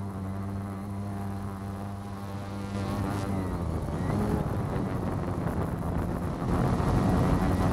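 Quadcopter drone's motors and propellers buzzing as it lifts a hanging model-plane fuselage. About three seconds in the buzz shifts in pitch and turns rougher, with wind on the microphone.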